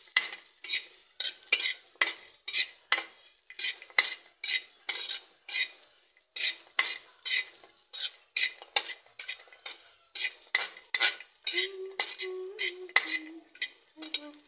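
Spoon stirring and scraping in a kadhai, about two strokes a second, as chopped ginger is dry-roasted on the gas.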